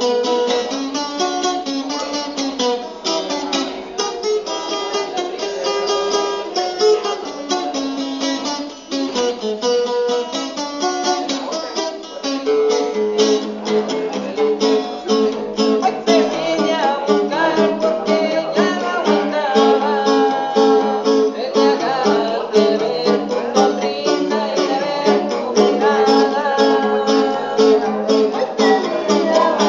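Acoustic guitar being played: picked melodic lines for the first part, then a steady, evenly repeating picked chord accompaniment from about twelve seconds in.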